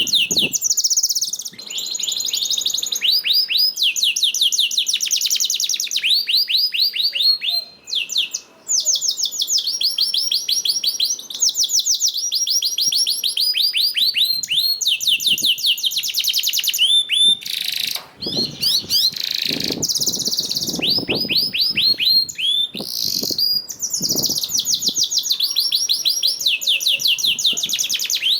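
Domestic canary singing a long, continuous song of rapid trills, each a fast run of repeated high notes, switching from one trill to the next every second or two.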